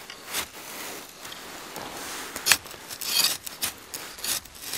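Close handling noise of binoculars on a tripod and the hunter's synthetic jacket: irregular rubbing and scraping with several sharp clicks, the sharpest about two and a half seconds in.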